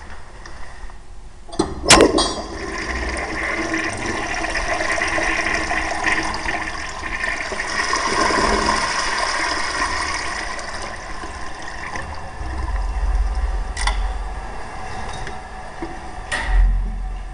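1954 Standard Modernus toilet flushing: a sharp click about two seconds in, then water rushing through the bowl for about ten seconds, strongest midway and easing off. A couple of clicks follow near the end.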